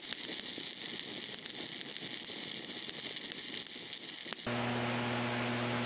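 7018 stick welding arc crackling and sizzling as an electrode burns on a vertical-up tee joint. About four and a half seconds in the crackle cuts off and a steady low electrical hum is left, the Miller Thunderbolt AC welder's transformer humming.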